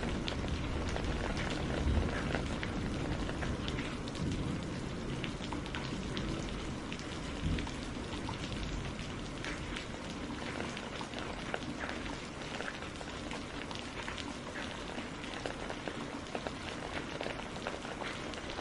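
Steady rain falling, with many small drop ticks over an even wash and a low rumble swelling briefly about two seconds in and again near the middle.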